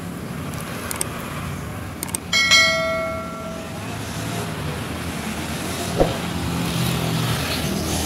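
Steady background hiss and low hum. About two and a half seconds in, a single bell-like chime rings out and fades within about a second. A soft tap follows later.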